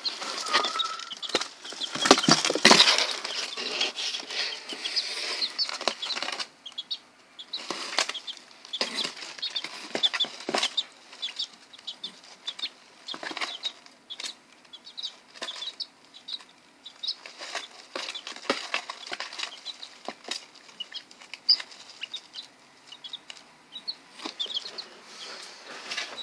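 Young partridge and golden Sebright chicks peeping over and over in high short chirps, with wing flapping and scuffling in wood shavings; the loudest flurry of flapping comes about two seconds in.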